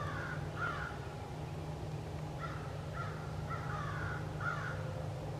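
American crows cawing, a series of short calls repeated several times.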